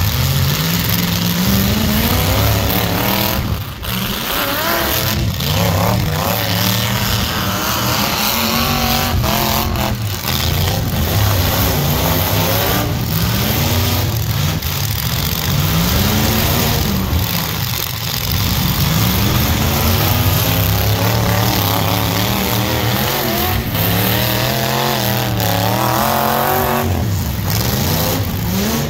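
Several demolition-derby mini truck engines revving up and dropping back again and again, overlapping one another, as the trucks drive and push through the dirt.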